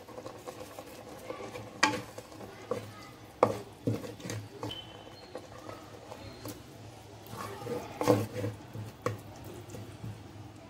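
A spatula stirring a thick, wet curry in a clay pot, with irregular scrapes and knocks against the pot's sides.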